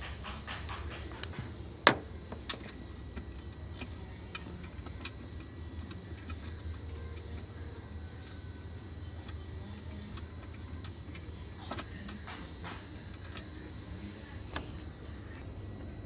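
Scattered small clicks and taps of parts being handled at the centre hub of an LG top-loading washing machine's tub, with one sharp, loud click about two seconds in, over a low steady hum.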